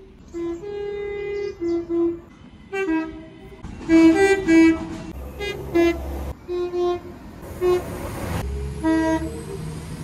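Class 195 diesel multiple unit two-tone horns sounding a rapid series of short blasts, alternating between a higher and a lower note, repeated over several trains. Two bursts of rushing noise come between the horn blasts about halfway through.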